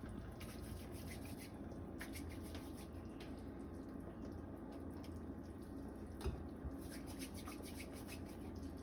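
Pot of chicken soup boiling faintly, with a few soft plops as small pieces of flour dough (spinners) are dropped in by hand.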